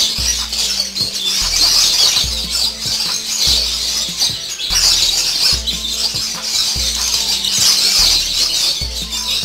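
Many small caged birds chattering and squawking together in a dense, continuous high-pitched din, over background music with a repeating deep bass line.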